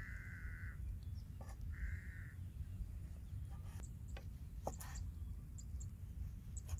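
A crow caws twice, near the start and about two seconds in. A kitchen knife slices a sausage on a wooden chopping block, its blade tapping sharply against the wood several times in the second half. A steady low rumble runs underneath.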